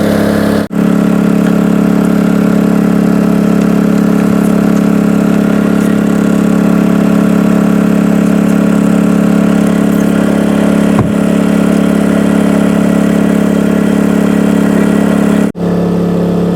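Engine running steadily at a constant speed, a loud even hum, cut off briefly twice by edits.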